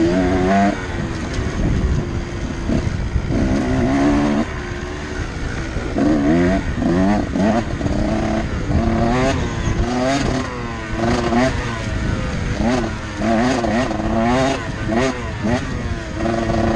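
Dirt bike engine being ridden hard on and off the throttle, its pitch climbing and dropping again and again, roughly every second, over a steady low rumble.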